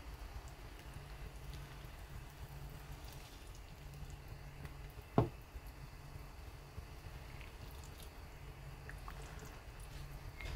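A ladle stirring through a pot of simmering chicken soup, with quiet liquid sloshing and drips and one sharp knock of the ladle against the pot about five seconds in. A low hum runs underneath.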